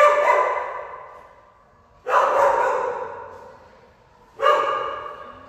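A dog barking three times, about two seconds apart. Each bark is loud and sudden, with a long echo in a tiled kennel run.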